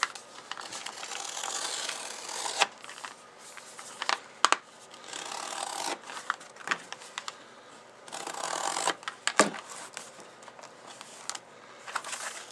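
Plastic blister packaging being pried and torn open by hand: several swells of rustling and crinkling broken by sharp clicks and snaps.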